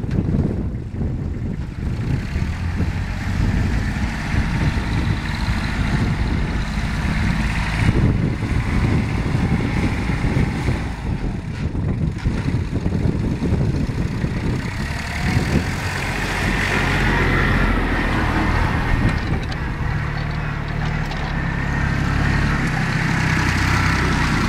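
Small Kubota Aste compact tractor's diesel engine running steadily as it drives a rear row rotary tiller, then travels with the tiller lifted. It grows louder in the second half as it comes closer.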